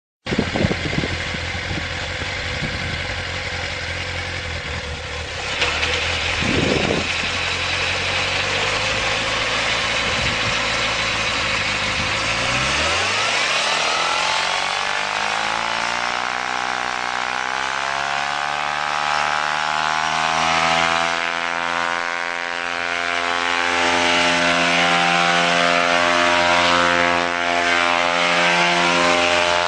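Small engine on a homemade rotor machine running rough and low, then a little under halfway through revving up smoothly over several seconds. It settles into a high, steady drone whose speed wavers slightly.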